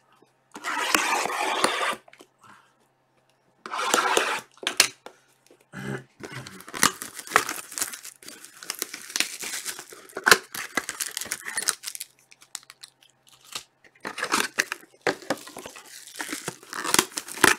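Plastic shrink wrap being torn and crinkled off a sealed trading card box. Two short tearing bursts come first, then a long run of crackling with many sharp clicks as the wrapper and box are handled.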